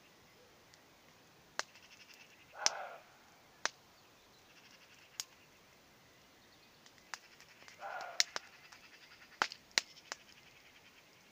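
Distant roe deer barking: two short barks about five seconds apart. Sharp crackling pops from a campfire sound throughout.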